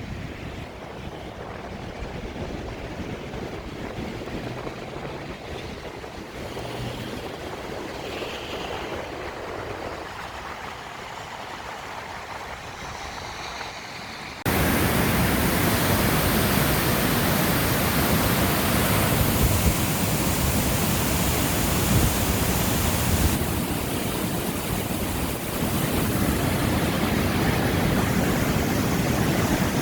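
Flood-swollen river water rushing steadily. About halfway through the rush jumps abruptly much louder and fuller, and stays loud.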